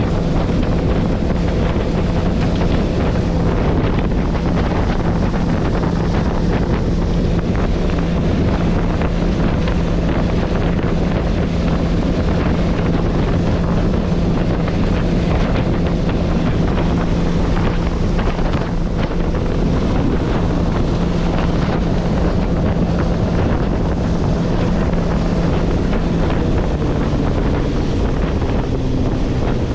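Wind buffeting the microphone and water rushing past the hull of an iKon LX20 bass boat running flat out at about 70 mph, under a steady outboard drone. Near the end the engine note drops as the throttle comes back.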